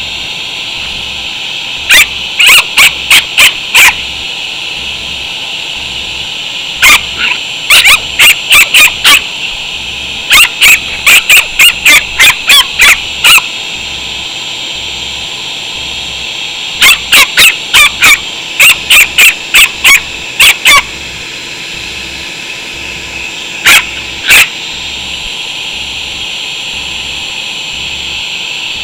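A Chihuahua barks at a running shop vac in repeated rapid volleys of sharp, high yaps, the loudest sound here. Under them the shop vac runs with a steady high-pitched whine, and near the end it runs on alone.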